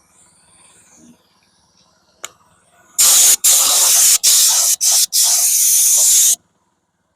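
A spray nozzle hissing in five loud bursts with brief breaks between them, after a single sharp click, during wheel refinishing work.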